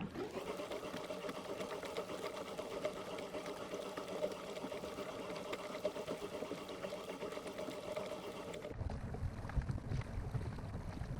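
A small electric motor driving a kayak runs with a steady whine, then cuts off about nine seconds in. After it stops, low water and wind noise remain.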